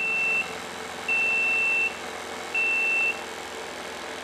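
Flow-alarm buzzer on a TIG welding water chiller beeping a steady high tone, three times, the last beep cut short. It goes silent a little after three seconds in as the coolant flow comes up and the alarm switches off. The chiller's 12 V diaphragm pump runs faintly underneath.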